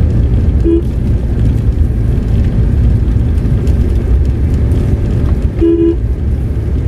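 Steady low in-cabin rumble of a Tata Nexon being driven, with a car horn beeping twice: a short tap about a second in and a longer beep near the end.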